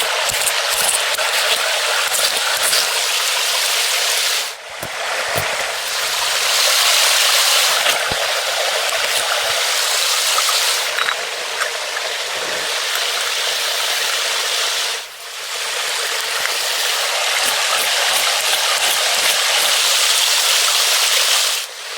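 Steady, loud rushing of water, an even hiss with no voice or tune in it, briefly dropping away twice partway through.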